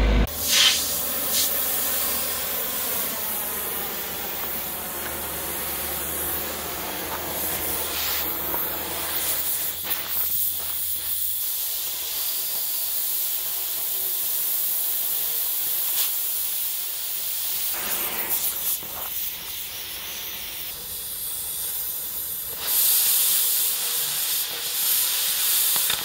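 Oxy-fuel cutting torch hissing steadily as it burns holes through a steel bunk upright. The hiss grows louder near the end.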